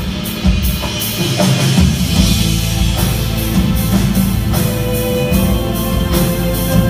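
Loud recorded dance music with a drum beat and guitar, heard through a theatre's sound system. A deep bass comes in just before two seconds in.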